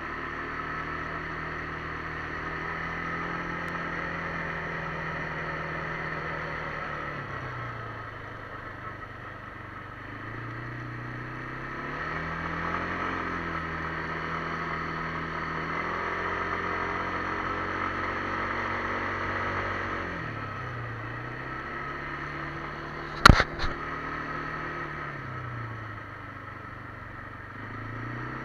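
Kymco MXU 300 ATV engine running, its pitch dropping and climbing back up a few times as engine speed changes. A sharp double knock, the loudest sound, comes about 23 seconds in.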